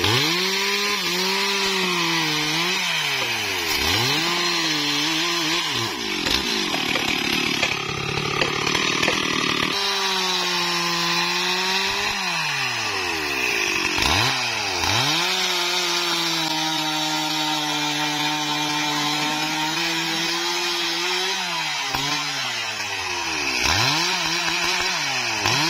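STIHL MS 382 two-stroke chainsaw sawing through a thick tree limb. The engine's pitch sags as the chain bites into the wood, and several times it drops right off and climbs again as the throttle is let go and squeezed.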